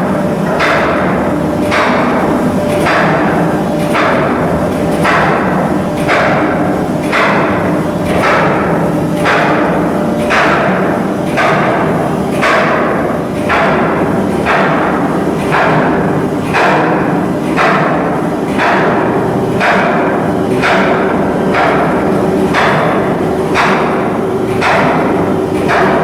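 Regular heavy knocks, a little more than one a second, over a steady low hum.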